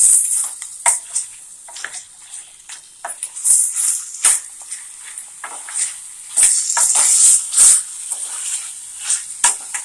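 Chicken pieces frying in hot oil in a steel kadai while being stirred, a steady high sizzle with irregular scrapes and clinks of the spoon against the pan.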